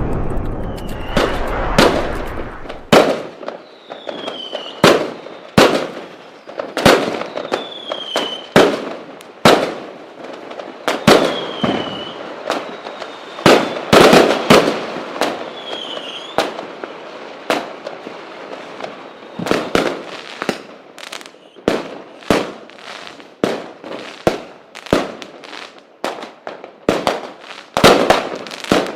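Fireworks going off: an irregular run of sharp bangs, often one or two a second, with crackle between them. Several short whistles fall in pitch among the bangs, and a low rumble fades out in the first few seconds. The bangs come quicker together near the end.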